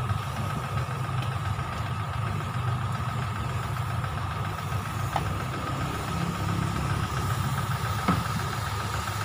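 Engine idling steadily, a low hum with a steady higher whine over it, and a couple of faint clicks midway and near the end.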